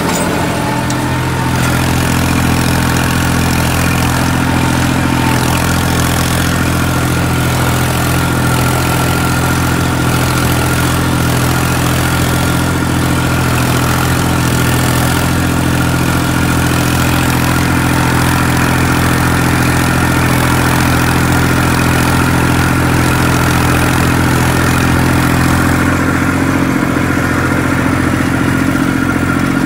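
Massey Ferguson 241 tractor's three-cylinder diesel engine running steadily while driving a rotavator through its PTO shaft. The engine holds an even pitch under the tilling load, with no drop in revs.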